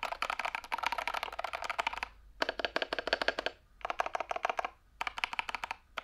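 Fast typing on a Machenike KT68 hot-swappable mechanical keyboard with Kailh Box Red linear switches: rapid keystroke clacks in four bursts with short pauses between.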